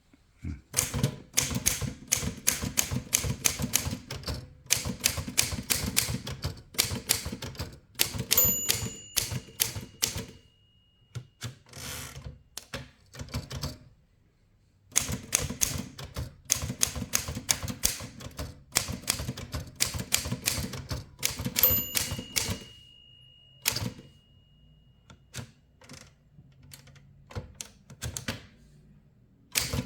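1948 Halda 6 manual typewriter being typed on in quick runs of key strikes, with pauses between lines. A bell rings twice, about 8 seconds in and again about 22 seconds in, each ring dying away over a few seconds.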